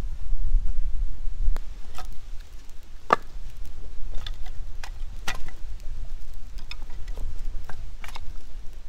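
Pieces of split firewood knocking and clacking together as they are handled and stacked, in about a dozen irregular knocks, loudest about three seconds in and again just after five. Wind rumbles on the microphone throughout.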